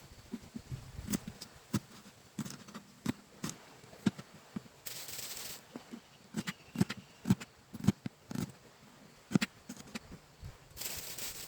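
Irregular knocks and clicks of objects being handled, about one to three a second, with a brief hissing rush about five seconds in and another near the end.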